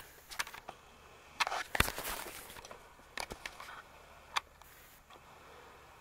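Scattered light clicks and taps over a quiet background, loudest about one and a half to two seconds in.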